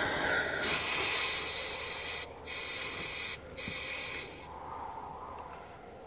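Static hiss from a spirit box sweeping through radio frequencies, cutting out briefly twice and then stopping about four and a half seconds in.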